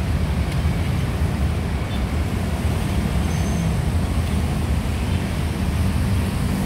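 Steady traffic noise from a busy multi-lane city road, with cars and motorbikes moving in both directions.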